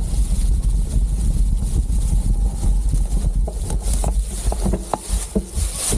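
Wind rumbling on the action camera's microphone as a full-suspension mountain bike rolls down a dirt trail covered in dry leaves. In the second half, a run of sharp rattles and knocks from the bike over the rough ground.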